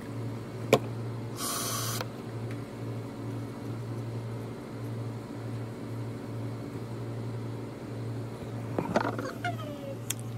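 A steady low hum with a sharp click just under a second in and a short hiss about a second and a half in. Near the end a toddler gives a brief whine that falls in pitch.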